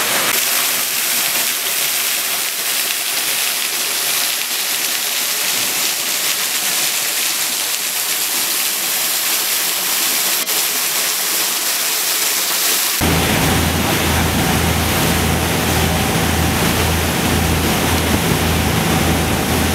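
Steady rushing of a waterfall. About thirteen seconds in it cuts to a boat engine's low, rhythmically pulsing hum over water noise.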